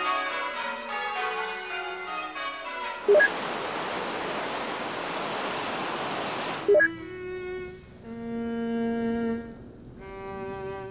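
A sequence of electronic sounds: a short, loud blip repeating about every three and a half seconds, between them a falling run of tones, then a few seconds of steady hiss, then several held single tones.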